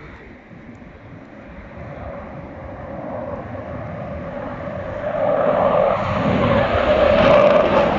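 Panavia Tornado jet's twin RB199 turbofans running at take-off power, a broad roar that grows steadily louder as the jet comes closer, loudest in the last few seconds.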